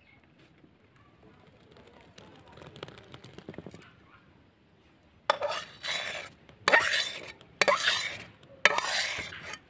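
Metal spatula scraping thick rosella jelly out of a wok (kadai) into a steel bowl: soft sounds at first, then about four loud scraping strokes over the second half.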